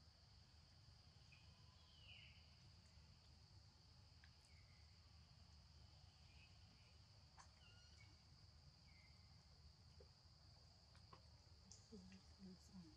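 Faint forest ambience: a steady high-pitched insect drone, with a few short faint chirps and light clicks.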